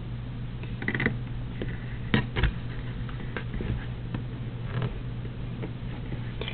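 Scattered small clicks and rustles of fingers pulling and tightening knots in embroidery floss, over a steady low hum.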